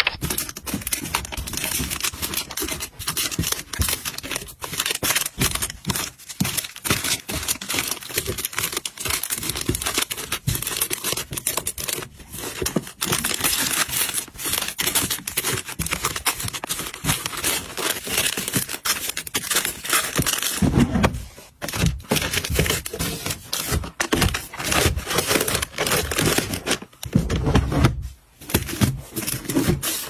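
Plastic-wrapped tissue and wipe packs crinkling and rustling as they are handled and packed tightly one after another into a drawer, with dull knocks at times, most in the last third.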